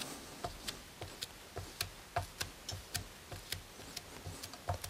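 A white sponge dabbed repeatedly onto melted encaustic wax on card, making faint, quick ticks, about three or four a second.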